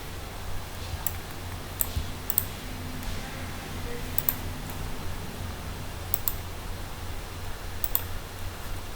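Computer keyboard keys and mouse clicks: a handful of short, sharp clicks spaced irregularly about a second apart, over a steady low hum.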